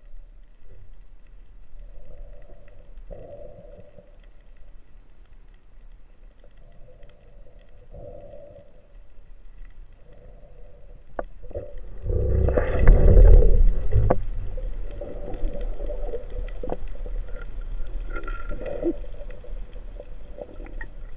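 Underwater sound through a camera's housing: low water rumble with soft swishes every second or two, a sharp click about eleven seconds in, then a loud rushing commotion for about two seconds before it settles back to low water noise.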